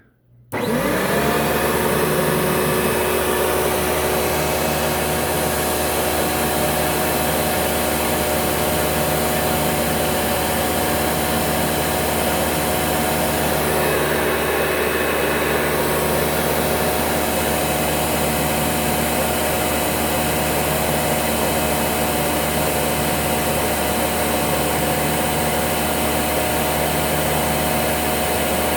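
Hoover Dimension U5209-930 direct-air upright vacuum switched on about half a second in. Its motor spins up quickly, then runs steadily at full speed, drawing air through the floor nozzle during an airflow test.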